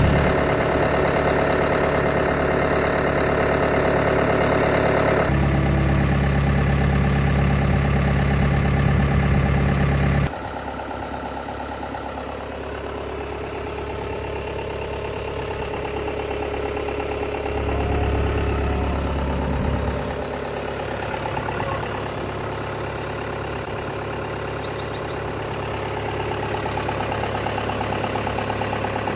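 Caterpillar 262C Series 2 skid steer loader's diesel engine idling steadily, its tone and loudness changing abruptly about five and ten seconds in and staying quieter after that.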